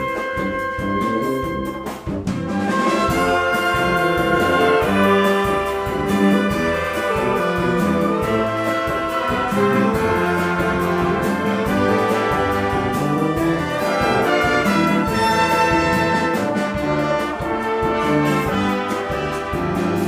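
Symphonic wind band playing live, clarinets and brass over a double bass; the full ensemble comes in louder about two seconds in.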